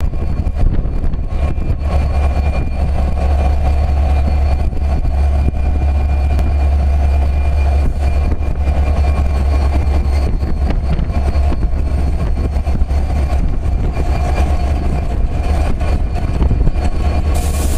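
Renfe Class 334 diesel locomotive's Caterpillar V12 diesel engine idling with a steady, loud low hum while standing ready to depart. A loud hiss starts near the end.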